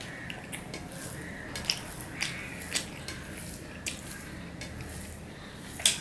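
Fingers mixing rice with fried snake gourd on a stainless steel plate: soft squishing, with a dozen or so sharp clicks where fingers touch the steel, the loudest just before the end.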